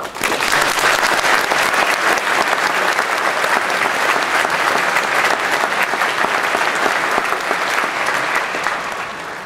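Large audience applauding: dense clapping that starts all at once, holds steady and dies down near the end.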